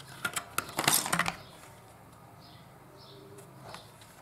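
Mould King plastic building bricks clicking and clattering as an assembled roof section is handled: a quick cluster of sharp clicks in the first second or so, then a couple of faint clicks near the end.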